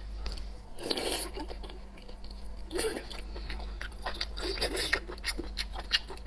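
Wet squelching handling sounds as fingers pull raw sea-snail meat from its shell over a glass bowl of sauce, with sharp clicks of shell against the dish toward the end.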